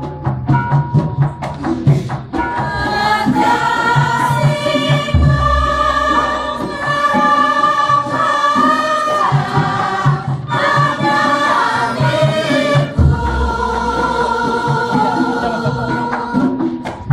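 Javanese palaran: a group of voices singing tembang together over gamelan accompaniment, with sharp metallophone and drum strokes in the first couple of seconds. A deep gong stroke sounds about five seconds in and again about thirteen seconds in.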